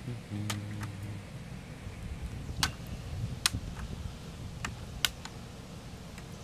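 Plastic screen bezel of a Samsung Series 5 laptop being pressed back onto the lid, its clips snapping into place with sharp clicks: four louder snaps spread over about five seconds, with a few fainter ones between.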